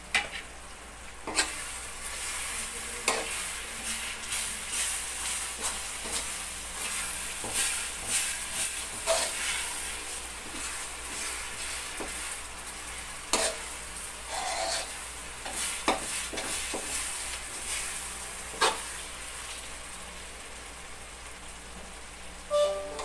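Metal slotted spoon stirring taro leaves simmering in coconut milk in an aluminium wok, over a steady sizzle. The spoon scrapes and knocks sharply against the pan several times, the last knock near the end ringing briefly.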